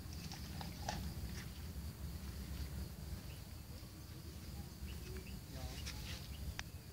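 Outdoor field ambience: a steady high insect buzz over a constant low rumble, with a few short clicks in the first second or so and again near the end, and a brief animal call about five and a half seconds in.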